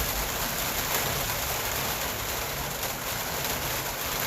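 Heavy rain coming down steadily.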